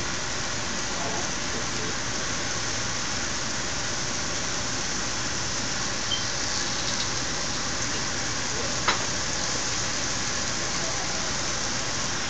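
Chicken pieces frying in a nonstick skillet, a steady sizzle, with one sharp click of the fork against the pan about nine seconds in.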